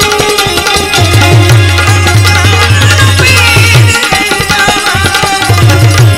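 Two tablas played together in a fast duet. Rapid crisp strokes on the treble drums ride over deep bass strokes on the bayan that bend in pitch.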